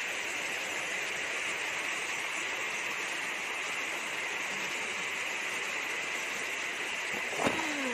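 A steady, even hiss in the background. Near the end, a single thud as a packed block of salted fish drops out of a basket into a plastic basin, followed by a short sound sliding down in pitch.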